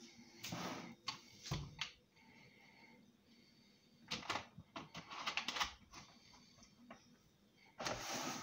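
Kitchen items being handled at the sink: several light knocks and clatters in short clusters, with one dull thump about one and a half seconds in.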